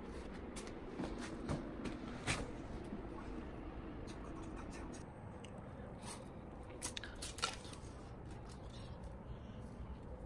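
Scattered light clicks and taps over a faint steady hiss, bunched in two clusters, the sharpest a little over two seconds in and about seven and a half seconds in.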